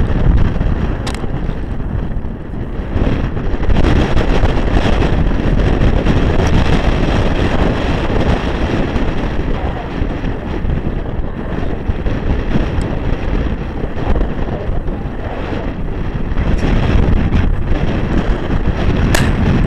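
Strong wind buffeting the microphone: a steady low rumble, with a faint click about a second in and another near the end.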